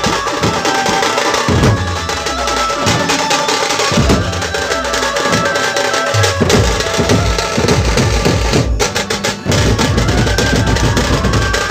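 A dhumal band's large stick-beaten drums and smaller hand drums playing a loud, fast, dense rhythm with a deep low end. About nine seconds in the beat drops out briefly, then the drumming comes back in full.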